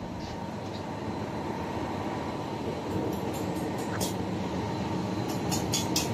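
Steady drone of ship's engine-room machinery. Near the end comes a quick run of short sharp clicks and crackles as a stick-welding electrode is put to the steel ring of a barbecue stand.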